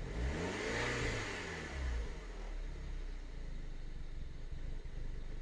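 2007 Mini Cooper S R56's 1.6-litre turbocharged four-cylinder engine, blipped once so that it rises and falls back within the first two seconds, then idling steadily. It runs smoothly at idle, its fuel pressure now restored by a new rail pressure sensor and the original high-pressure fuel pump.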